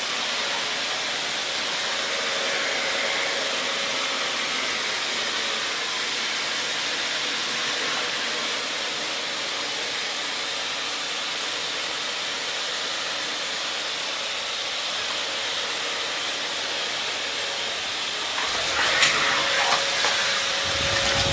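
Vacuum cleaner running steadily: an even rushing hiss with a steady motor whine. Near the end there are a few knocks and thumps.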